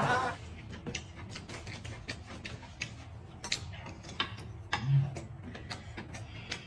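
Eating sounds: scattered, irregular crisp clicks of biting and chewing a hand-wrapped roll, over a steady low hum.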